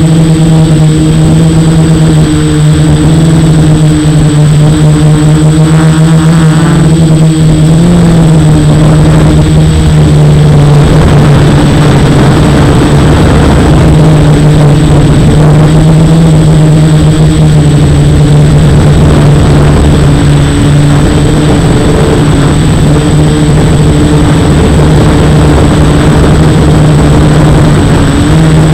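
F450 quadcopter's brushless motors and propellers buzzing in flight, the hum wavering a little in pitch as the throttle changes, with a steady high-pitched whine above it.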